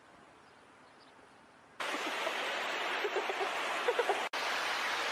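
Rushing floodwater, a loud steady roar of water that cuts in abruptly a little under two seconds in after a faint hiss, with a momentary dropout a little past four seconds.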